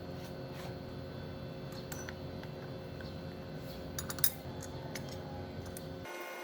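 Light metallic clicks and clinks of tools and small parts being handled, the sharpest about four seconds in, over a steady low hum.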